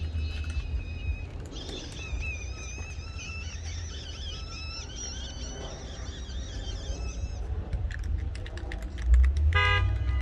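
Outdoor ambience with a steady low rumble and faint high warbling tones, then a short car horn toot near the end.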